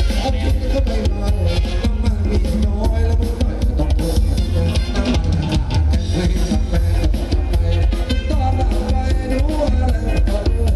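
Loud live band music for Thai ramwong dancing, with a drum kit beat, heavy bass and a singer.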